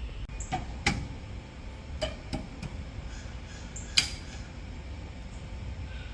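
A handful of short, sharp knocks and clicks over a low steady rumble. Two come near the start, three follow close together about two seconds in, and the loudest comes about four seconds in.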